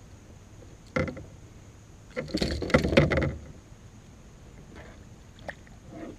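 Knocks and a rapid clattering rattle on a plastic kayak as a small fish is unhooked with pliers, the fish and lure knocking against the hull; the loudest clatter lasts about a second. A few lighter knocks and a small splash follow near the end as the fish is let go.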